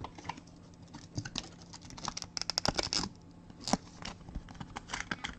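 Trading cards being handled and flipped through by hand: light scattered clicks and snaps of card edges, with a quick run of clicks about two to three seconds in.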